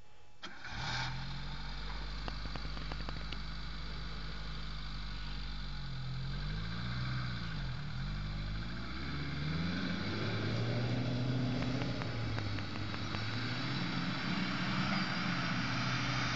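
Suzuki Samurai engine starting about half a second in, then running, its pitch rising and falling a few times before it settles higher as the jeep drives off.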